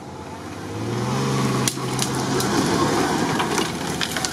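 UAZ rolling over fallen branches and brush, twigs crackling and snapping under its tyres, with a low steady drone in the first half. Barely any engine note is heard, which the crew take to mean it is being turned over on its starter motor in gear.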